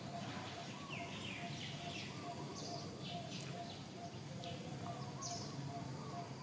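Birds chirping in short quick calls, with a short note repeated about twice a second over a low steady background noise.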